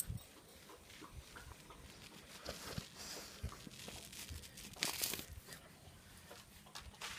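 Basset hounds moving about right against the phone: fur brushing and rubbing on the microphone, with scattered light clicks and knocks and a louder rustle about five seconds in.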